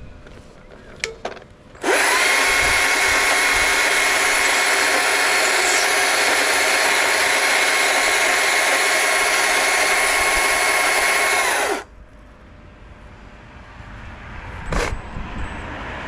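Stihl MSA 160 C battery chainsaw running unloaded for about ten seconds: a steady electric-motor whine over the rattle of the spinning chain. It starts and stops abruptly.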